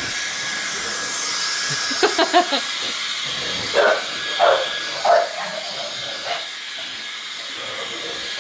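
Bladeless Dyson-style ionic hairdryer running: a steady rush of air with a faint high whine, like a jet engine. Several short, louder sounds break in over it, a quick cluster about two seconds in and a few more between about four and six seconds.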